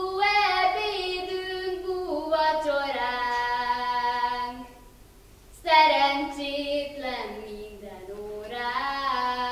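A girl's solo voice singing a slow Hungarian song unaccompanied, with long held notes. It comes in three phrases broken by two short breaths.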